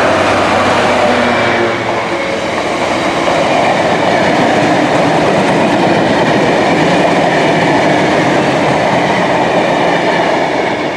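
GB Railfreight Class 66 locomotive, with its two-stroke EMD V12 diesel, passing at speed with a train of Castle Cement bulk tank wagons. The locomotive's engine note is heard in the first couple of seconds. After that comes the steady, loud noise of the wagons' wheels running over the rails.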